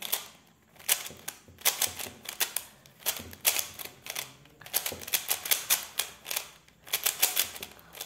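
Plastic 3x3 Rubik's cube being scrambled by hand: its layers click and clack as they are turned quickly. The clicks come in quick runs of several turns, about one run a second, with short pauses between.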